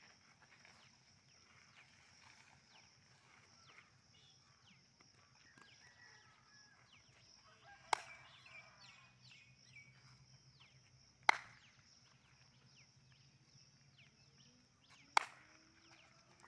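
Three sharp hand claps, spaced about three to four seconds apart, over a faint background with a steady high hiss.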